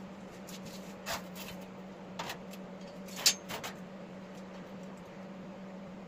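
A few light knocks and clicks of a sheet-metal panel and a clamp being handled against a steel mower deck. The sharpest is a metallic clink with a brief ring about three seconds in, all over a steady low hum.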